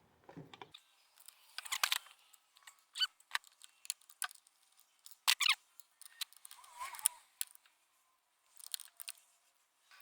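Metal hand tool clicking and scraping on screws as small screws are backed out of a lawnmower's carburetor cover, with irregular clicks and a few sharper snaps around 2 and 5 seconds in.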